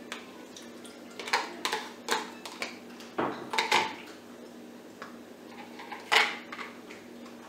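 Scattered clinks and knocks of kitchenware: a wooden spoon and cups tapping and scraping against a stainless steel mixing bowl as beaten eggs are scraped into it, with the loudest knock near the end.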